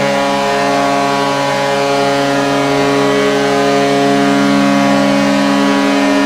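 Team Canada's ice-hockey goal horn at the 2019 World Juniors blowing one long, unbroken blast: a loud, steady, low chord of several tones held at an even pitch.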